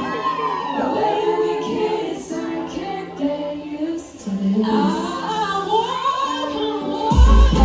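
Live pop concert music with singing, several voices at once, and little backing at first. A heavy bass beat thumps in near the end.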